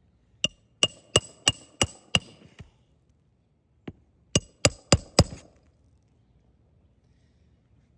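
Hammer driving roofing nails into asphalt shingles: a run of about six sharp, ringing strikes, a pause, a light tap, then four more strikes, about three a second.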